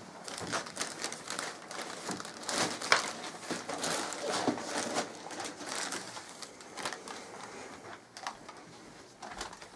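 Wrapping paper crinkling and rustling as a present is handled and wrapped, in an irregular run of crackles that is loudest about three seconds in and dies down near the end.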